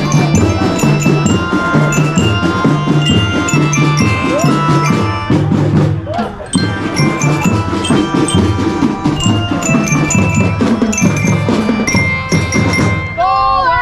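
A school drum band playing a march tune: bright bell-lyra (glockenspiel) melody over a steady beat of bass and snare drums.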